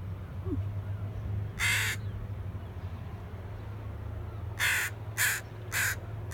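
Crow cawing: a single caw about a second and a half in, then three quick caws about half a second apart near the end, over a steady low hum.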